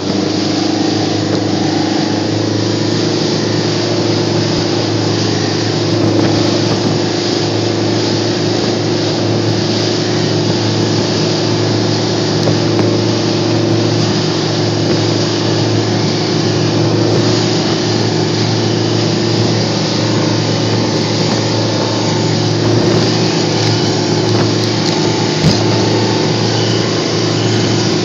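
Alusafe 580 aluminium rescue boat under way: its engine runs at a steady drone, with a constant hiss of rushing water and wind over it.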